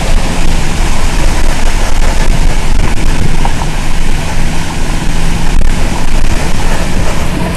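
A motor vehicle moving through floodwater: a steady low engine hum under loud, continuous rushing of water and wind noise on the microphone.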